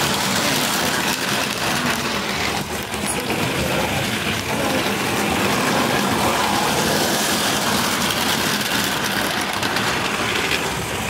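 OO gauge model train running on the layout's track: the steady whirr of the locomotive's small electric motor and the rumble of its wheels on the rails.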